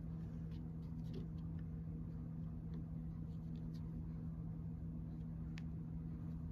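A steady low hum with a few faint, scattered soft ticks as hands pinch, press and set small pieces of soft clay down on a canvas-covered table.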